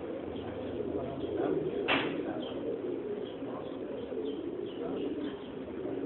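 A flock of Iranian domestic pigeons cooing continuously, many overlapping low coos, with small high chirps over the top. A single brief sharp noise stands out about two seconds in.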